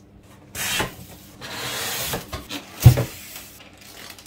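Packaging being handled: two spells of rubbing and scraping, then a sharp knock about three seconds in.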